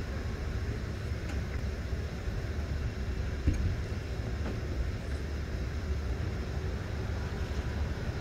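Steady low rumble of an idling car, heard from inside the cabin, with one light knock about three and a half seconds in.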